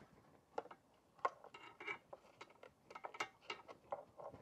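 An LED headlight bulb being pushed into the socket of a plastic headlight housing and twisted into place, its base scraping and clicking against the housing. The sound is faint: a dozen or so small, irregular clicks.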